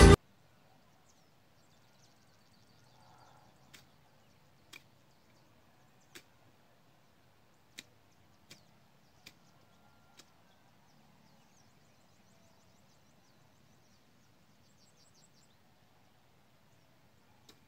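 Faint open-air field ambience after background music cuts off right at the start: distant small birds chirp faintly, and about seven sharp, separate clicks or snaps come roughly a second apart in the middle stretch.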